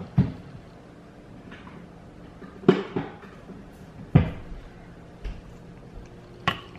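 Four sharp knocks of kitchen cupboard doors being opened and shut, spaced a second or two apart.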